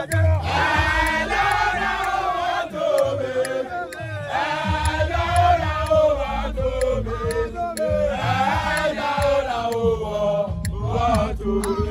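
A group of men singing a chant together in loud phrases.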